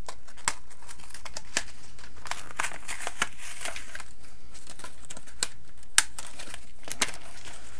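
Foil Yu-Gi-Oh! booster-pack wrapper being crinkled and torn open by hand: a run of sharp crackles, with one louder snap about six seconds in.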